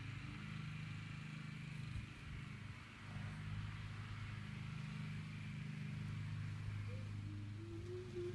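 Steady low hum of a running motor, like an engine idling, dipping briefly about two to three seconds in.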